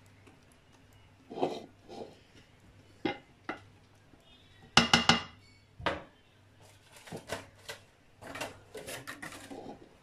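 Kitchenware being handled: containers, lids and utensils knocking and clicking against each other in separate taps. The loudest is a quick cluster of clicks about five seconds in, and a busier run of taps follows near the end.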